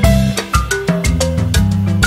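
Background music with a quick, steady beat and a bouncy melody of short notes over a bass line.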